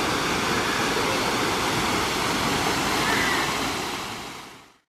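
Waterfall rushing steadily, fading out near the end.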